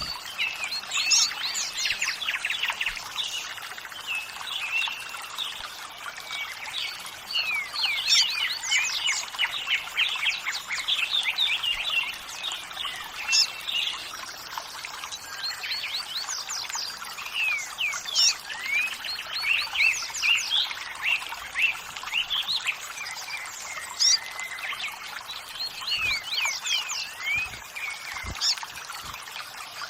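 Several songbirds chirping and singing in quick, repeated short notes over the steady rush of running water.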